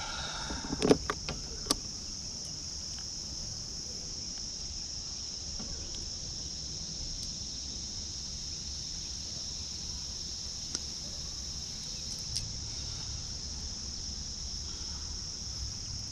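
Steady high-pitched insect chorus of crickets, with a low rumble underneath and a few sharp knocks in the first two seconds.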